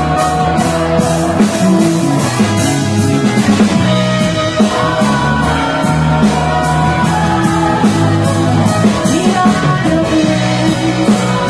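Live rock band playing: a drum kit keeping a steady beat under electric guitar and long held chords.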